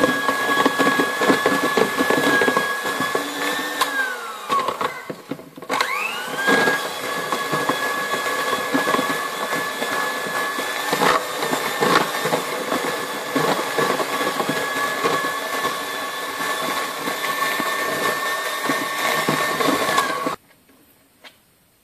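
Electric hand mixer running steadily, its beaters whipping egg whites as hot sugar syrup is added for nougat. About four seconds in, the motor whine falls and cuts out, then picks up again a second or two later. Near the end it stops suddenly.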